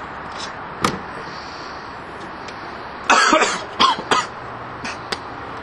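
A person coughing several times in short, loud bursts, starting about three seconds in, over steady background noise. A single sharp click comes about a second in.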